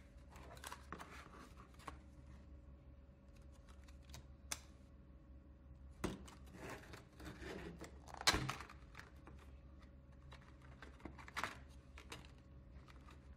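Stiff clear plastic blister packaging being handled and opened: crinkling and crackling with scattered clicks and snaps, the loudest a sharp snap about eight seconds in. A faint steady hum runs underneath.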